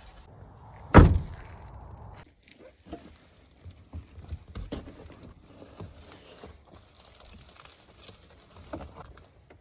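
A vehicle door shuts with a heavy thunk about a second in. Scattered small clicks and knocks of things being handled follow.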